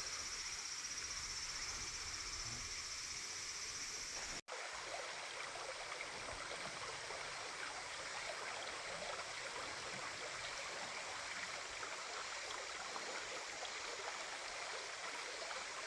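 River water flowing: a steady, even rush of a nearby stream, with a brief cut-out about four and a half seconds in.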